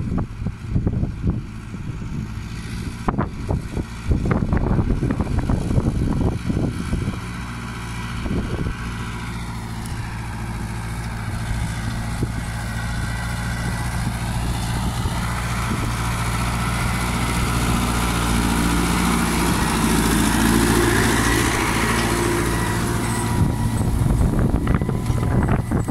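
Tractor's diesel engine running steadily under load while pulling a stubble cultivator, growing louder as it comes closer. Gusts of wind buffet the microphone during the first several seconds.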